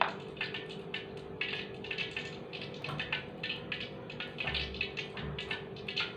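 Hot oil crackling and sizzling as dough rolls fry in a pan: a dense, irregular patter of small pops, over a faint steady hum.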